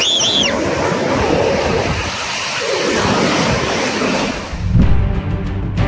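Sea waves washing onto the beach in a steady rush. A short high-pitched cry sounds right at the start, and background music comes in near the end.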